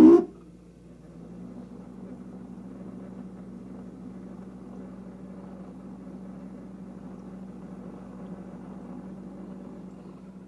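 Refrigerator running with a steady hum, after a short loud burst right at the start.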